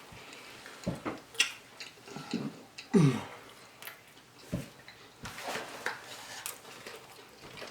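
Close-miked eating sounds: chewing and mouth smacks, with scattered sharp clicks and a short falling vocal sound about three seconds in.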